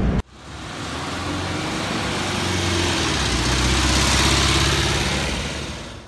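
An old van's engine running as the van pulls away down the street. It fades in after a sudden cut, grows louder to about four seconds in, then eases off.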